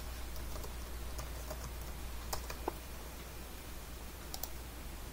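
Typing on a computer keyboard: a quick run of key clicks over the first two and a half seconds, ending in a couple of harder presses, then two more clicks about four seconds in, over a steady low hum.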